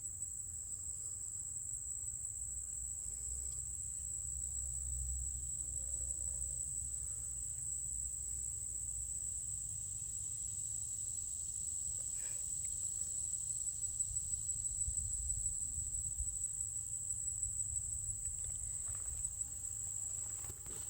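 Insects singing in one steady, unbroken high-pitched drone, over a low rumble on the microphone.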